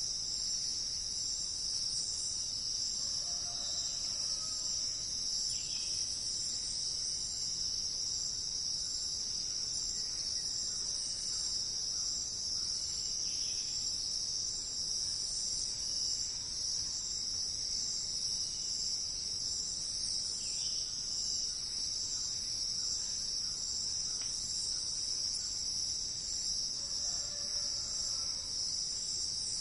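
Steady, high-pitched chorus of insects, unbroken throughout, with a few faint, short bird calls now and then.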